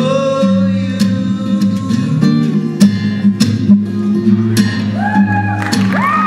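Acoustic guitar playing an instrumental passage, notes plucked with sharp attacks over held low notes, with a few rising, sustained tones coming in near the end.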